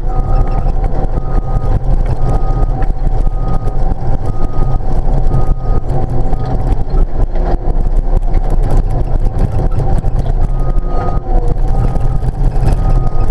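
Crawler dozer's diesel engine running steadily, heard from inside the cab, with its reverse alarm beeping about once every 0.6 s, a sign that the machine is backing up. The beeping stops after about five seconds while it moves forward and starts again near the end.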